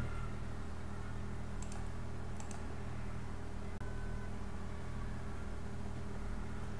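Steady low electrical hum under faint hiss, with a couple of faint clicks about two seconds in.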